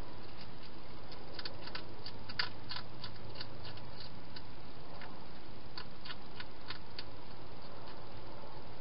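Hedgehog eating inside a plastic feeding box: small, crisp crunching clicks of chewing, in two spells, over a steady hiss.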